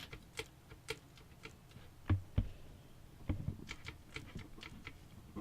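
Small plastic and metal clicks and taps inside a computer case as the 24-pin power cable is wiggled and moved aside. Two louder knocks come about two seconds in, and another about a second later.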